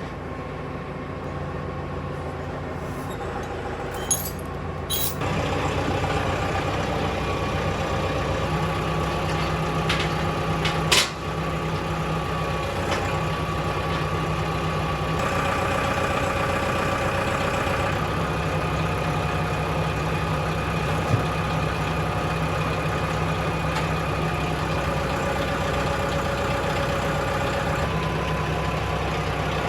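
An engine running steadily, with a few short sharp knocks in the first half.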